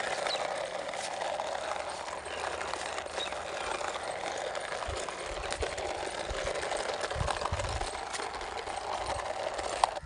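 Plastic toy front loader moving over loose soil: a steady rough mechanical noise, with a few low thumps about five to eight seconds in.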